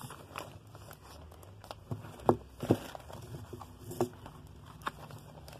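Pages of a glossy paper catalogue being handled and turned: a soft rustle with a handful of short flicks and taps spread through.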